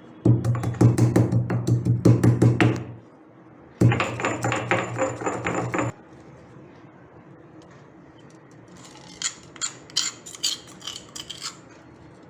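Black peppercorns and cumin seeds being pounded with a pestle in a mortar: two bouts of rapid, ringing strikes, each lasting a couple of seconds, with a short pause between them. A few lighter clinks follow near the end.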